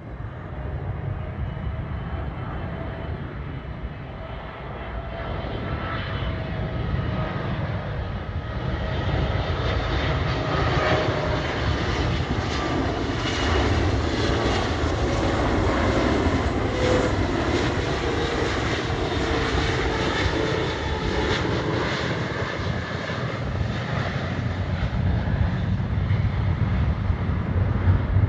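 Jet airliner's engines passing close by and growing louder, with a whine slowly sliding down in pitch over a heavy rumble.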